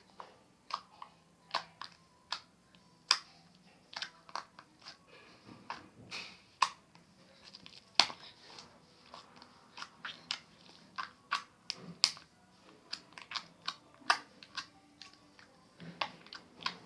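Toy slime squeezed and pressed by hand for ASMR, giving irregular sharp clicks and pops, one to three a second.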